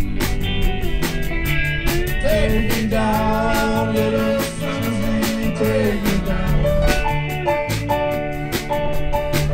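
Live blues-rock band playing: electric guitars, bass guitar and drums keep a steady beat, with a melody line carried over the top.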